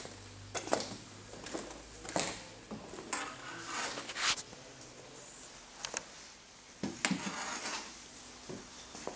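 Scattered knocks, clicks and scuffing noises in a small room, about ten over the few seconds, with two longer scrapes about three and seven seconds in.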